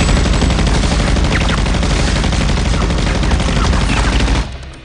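Rapid, sustained gunfire in a film shootout: many shots fired in quick succession and overlapping without a break, stopping abruptly about four and a half seconds in.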